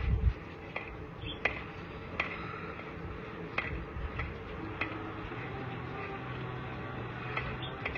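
Drain inspection camera rod and reel being fed into the pipe: irregular light clicks and ticks, a few louder knocks near the start, over a steady low hum.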